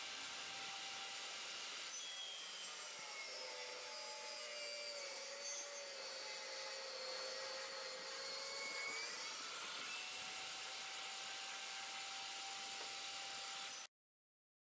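Benchtop table saw cutting a thick plank of hard wood in a shallow pass: a steady rushing hiss of blade through wood over the motor's whine. The whine drops in pitch about four seconds in while the blade is loaded and comes back up around ten seconds. The sound cuts off abruptly near the end.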